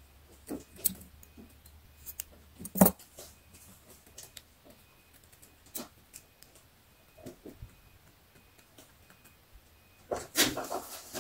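Soft, scattered rustles and light knocks of hands handling a crocheted yarn garment while working a yarn tail through the stitches with a needle. One sharp knock comes about three seconds in, and a longer run of rustling comes near the end.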